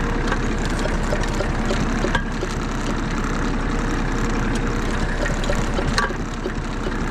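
Small pull-start gasoline engine on a vacuum running steadily, with a couple of sharp clicks, about two seconds in and again near the end.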